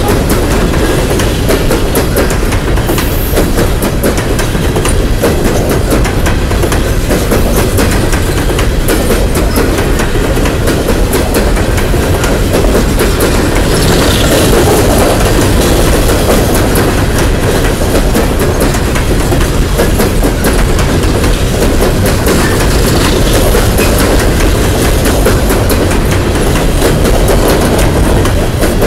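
Long train of empty coal hopper cars rolling past close by: a loud, steady rumble with rapid clatter of the wheels over the rail joints.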